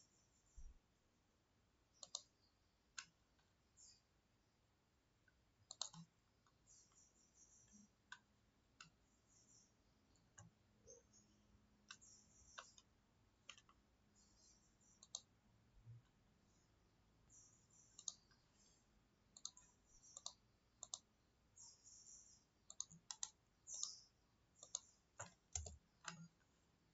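Faint computer mouse clicks, with a few keyboard taps, coming irregularly over near-silent room tone and growing busier near the end.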